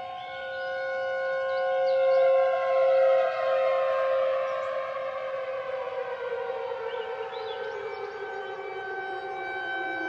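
Outdoor warning siren sounding a steady tone, with one of its tones sliding slowly down in pitch from a few seconds in while other steady tones carry on.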